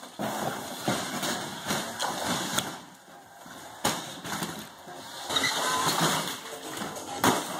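A sumo robot built from an electric wheelchair, driven by its two 2 HP motors, rams and shoves a dishwasher across a concrete floor. It makes a steady clatter of scraping and rattling metal, with sharp bangs about four seconds in and again near the end.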